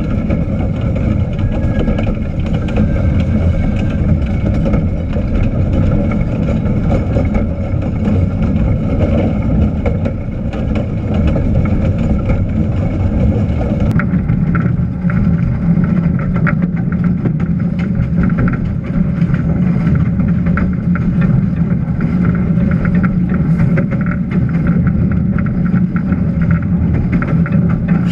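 Small locomotive running slowly along the track, heard from close on its body: a steady mechanical running noise with a low rumble. The sound changes a little about halfway through.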